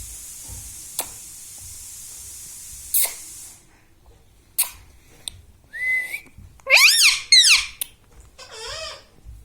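Pet rose-ringed (ring-necked) parrot giving a run of short whistled squawks in the second half: a rising call, then two loud sweeping calls, then a lower falling one near the end. Before that, a steady hiss with a few clicks.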